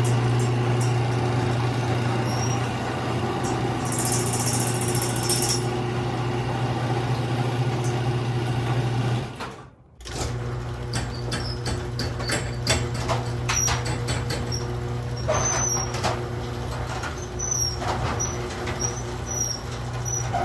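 Chamberlain HD400DM garage door openers running, a steady motor hum as the doors travel. The hum cuts out briefly about halfway, then returns with clicks and rattles from the moving doors.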